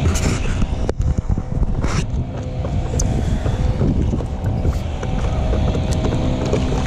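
Wind buffeting the camera's microphone with a steady low rumble, and two short splashes of the paddle blade in the water, one right at the start and one about two seconds in.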